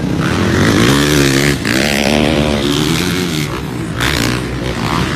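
Motocross dirt bike engines revving, their pitch rising and falling as the riders race on the track.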